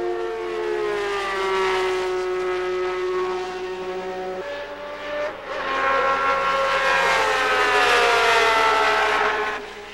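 Honda RA301's 3-litre V12 racing engine running on track, a high-pitched multi-toned howl whose pitch slides down in long glides, then rises again about five and a half seconds in before falling away as the car moves off.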